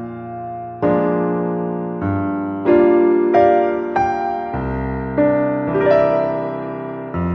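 Background music: a slow piano or electric piano piece, sustained chords struck about once a second and left to fade.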